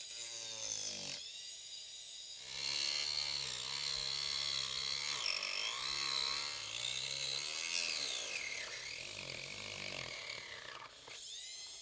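Hand-held mini drill fitted with a small cutting disc, sawing into a plastic model-kit wall. Its motor whine sags and wavers in pitch as the disc bites under load, easing back to a steady whine near the end.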